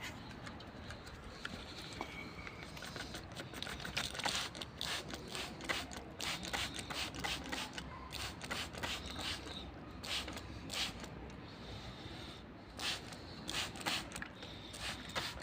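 European goldfinch bathing: irregular flurries of short splashing and wing-flapping bursts in a water dish. The first few seconds are sparse, and the flurries grow busier from about three or four seconds in.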